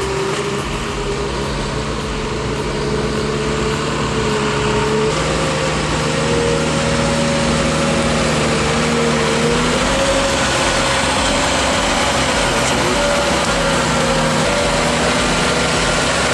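A heavy machine's engine running steadily under load, its pitch creeping upward and stepping up about five seconds in.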